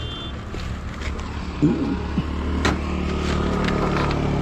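A motor vehicle engine running steadily, with a brief wavering sound about halfway through and a sharp click.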